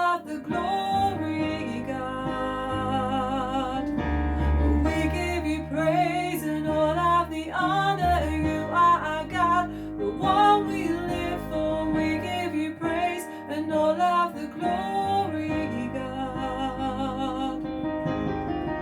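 Worship song played on piano and keyboard, with a female voice singing over it.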